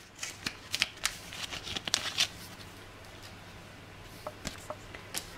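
A clear plastic card sleeve being handled and a photo card slid out of it: a quick run of small crinkles, rustles and clicks over the first two seconds or so, then a few faint ticks near the end.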